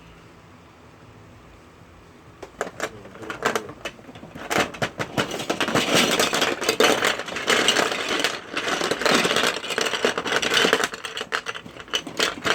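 Plastic Duplo Lego bricks clattering and clicking against each other as they are handled and rummaged through. A few clicks about two seconds in, then dense, continuous rattling from about halfway on.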